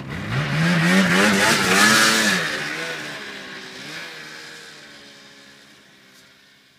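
Snowmobile engine revving hard as the sled pulls away through deep powder, its pitch rising and falling with the throttle, then fading steadily as it gets farther off.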